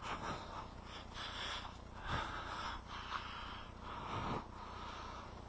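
A man breathing close to the microphone, several breaths about a second apart, over a steady low rumble of wind on the microphone.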